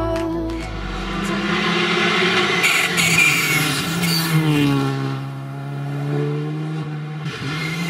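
Skoda Fabia R5 rally car's turbocharged four-cylinder engine driven hard on a tarmac stage: the revs climb, fall away about halfway through as it lifts for the bend, then rise again as it accelerates on.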